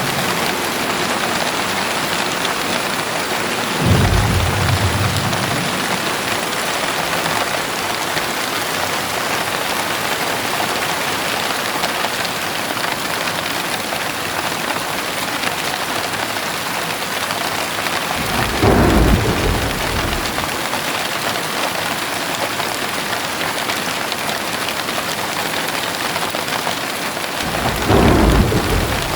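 Heavy rain falling steadily, with three short low rumbles of thunder: a few seconds in, about two-thirds of the way through, and again near the end.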